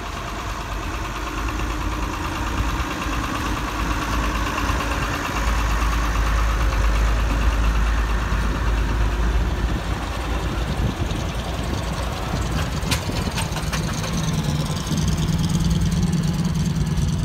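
Engines of vintage commercial vehicles running as they drive slowly past: first a flatbed lorry, then a vintage fire engine. A deep engine rumble is loudest around the middle, and a steadier, higher engine note takes over near the end.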